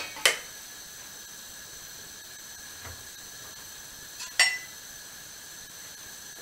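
Steady faint hiss from a gas stove heating a pan of dry sugar, with two sharp metallic clicks about four seconds apart from the pan knocking on the stove grate.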